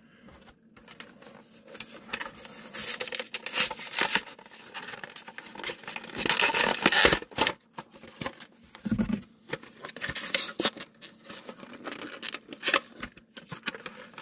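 Hands tearing open a die-cast toy car's blister pack: the clear plastic blister crackles and crinkles as it is pulled and peeled away from the torn cardboard backing card, in irregular rustles and clicks, loudest about six to seven seconds in.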